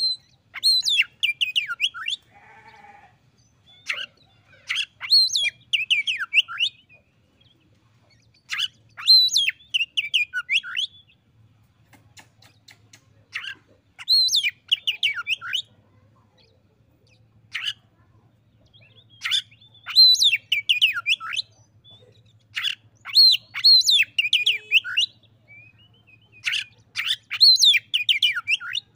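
Caged oriental magpie-robin (kacer) singing its challenge song toward a rival. The song comes as loud, rapidly varied whistled phrases of about two seconds each, repeated about every three to four seconds with short pauses between them.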